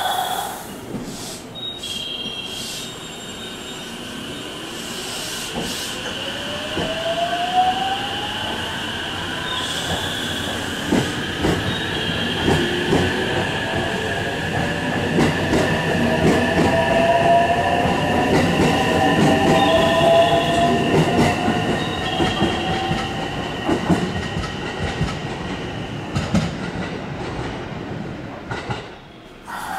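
Kuroshio limited express electric train pulling out of the station and accelerating away. Its motors whine in a rising pitch over the first several seconds, with a steady high tone and the clicking of wheels over rail joints. The sound grows louder to a peak midway, then fades near the end as the train leaves.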